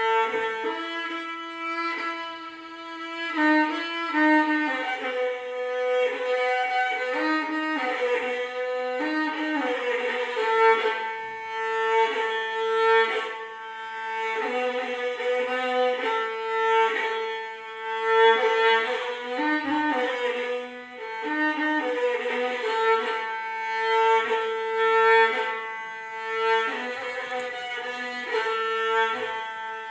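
Solo violin playing a melody, bowed note by note, each note held from about half a second to two seconds.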